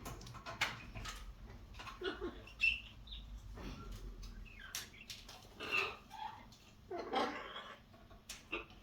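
Pet parrot making scattered short chirps, clicks and brief scratchy calls.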